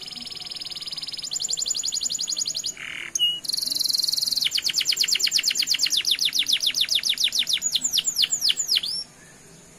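Domestic canary singing a long rolling song: a fast even trill, then long runs of rapid high down-slurred notes, about ten a second, that slow into a few longer down-sweeps near the end and stop abruptly.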